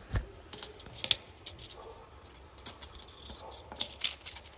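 Irregular light clicks and taps of a small plastic pack of sewing-machine needles being handled on a sewing table, with a sharper click about a second in and a cluster of clicks near the end.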